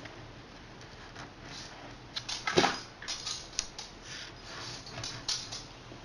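Light metallic clicks, taps and scrapes of tools and small metal parts being handled, in an irregular string, the loudest clack about two and a half seconds in.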